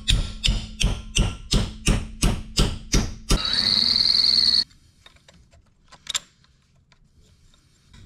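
About ten hammer blows, roughly three a second, on a steel bar clamped in a bench vise. Just after three seconds in, a drill bores into the steel for about a second with a steady high whine and stops abruptly, leaving near quiet with one faint click.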